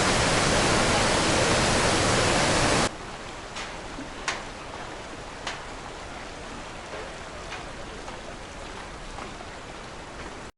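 Steady, loud rush of water from Iguazu Falls, which cuts off suddenly about three seconds in, leaving a much quieter hiss with a few short sharp clicks.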